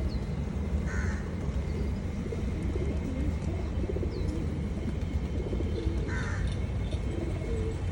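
Pigeons cooing over a steady low rumble, with two short harsh bird calls, about a second in and about six seconds in.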